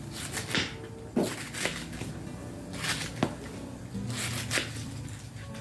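Knife chopping cabbage on a cutting board in irregular strokes, about ten of them, over soft background music.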